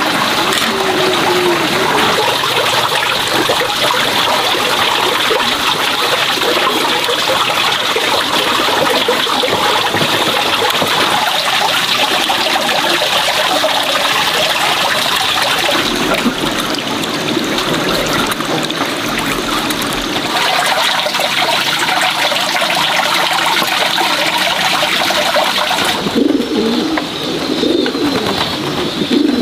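Steady rush of running water, with pigeons cooing now and then; the cooing stands out more near the end, when the water noise drops.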